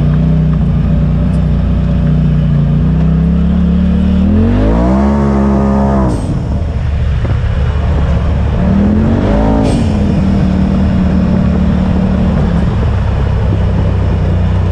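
Polaris RZR side-by-side engine running along at trail speed, revving up twice: a rising rev about four seconds in that drops off at about six seconds, and a shorter rise and fall at about nine to ten seconds.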